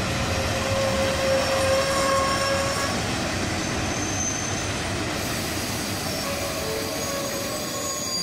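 Taiwan Railway E200-series electric locomotive E222 and its passenger cars rolling slowly past on an arrival: a steady rumble of wheels on the rails with thin, steady squealing tones that fade in and out.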